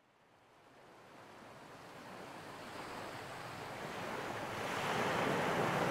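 Rushing noise of ocean surf, fading in from silence and growing steadily louder.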